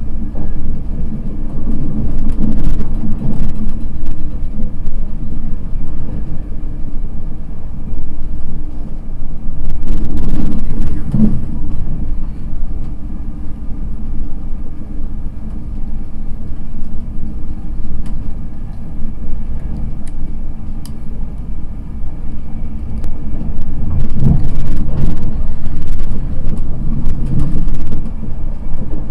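Inside an East Coast Main Line express passenger coach running at speed: a loud, steady, deep rumble of wheels on the track, with a few short knocks now and then.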